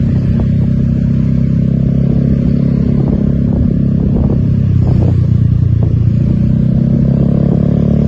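A vehicle engine running steadily with a low drone, with some light rattling.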